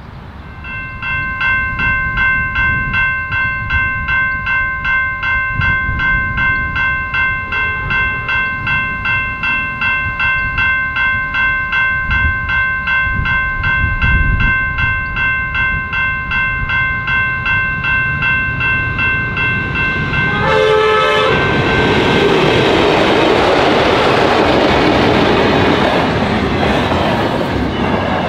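Level crossing bell ringing, a rapid, even, repeated ding at a couple of strokes a second. About 20 seconds in there is a short horn blast. A freight train of container wagons then passes close by, its wheels rumbling and clattering on the track.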